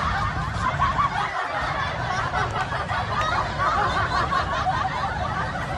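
Continuous high-pitched snickering laughter.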